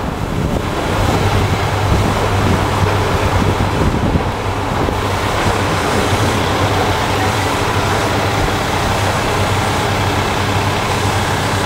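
JR Kyushu diesel railcars idling at a station platform: a steady low engine hum from about a second in, under a loud even rush of noise.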